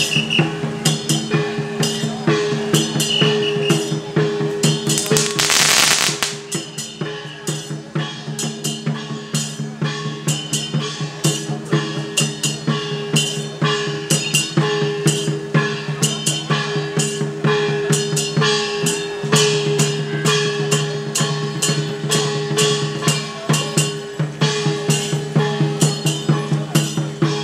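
Temple procession music: a steady, repeated drum and percussion beat under a sustained melody. About five seconds in there is a short loud crackle, like a string of firecrackers going off.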